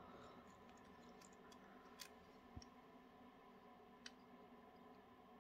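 Near silence with a few faint clicks and one soft thump from a plastic model locomotive being turned over in the hands.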